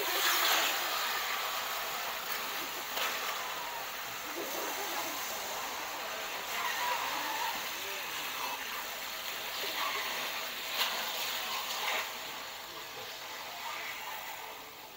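Busy street-market ambience: background voices and a steady wash of crowd and stall noise, with a few short knocks.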